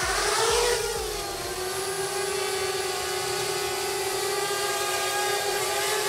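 Parrot Bebop 2 quadcopter's four motors and propellers whining as it lifts off, the pitch climbing in the first second, then settling into a steady hum as it hovers.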